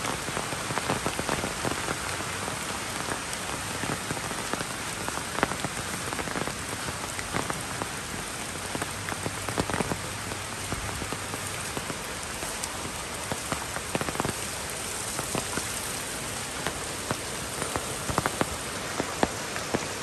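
Steady rain falling, a dense even hiss with many sharp drop hits scattered through it.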